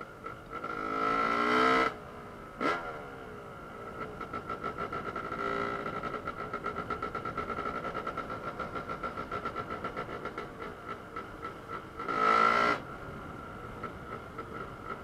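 Dirt bike engines running on a ride, heard from the rider's helmet. Twice the revs rise hard, about a second in and about twelve seconds in, with a short sharp blip near three seconds; in between the engines run steadily with a quick pulsing.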